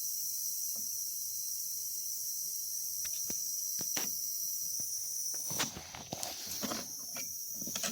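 Steady high-pitched whine and hiss of an air cooler converted into a misting 'humidity blaster', with a faint low hum under it. A few sharp clicks come about halfway through, then handling rustles and knocks in the last couple of seconds.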